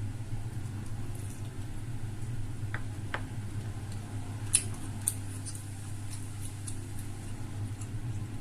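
Eating sounds: soft chewing with a few light clicks, two sharper ones just past the middle, over a steady low hum.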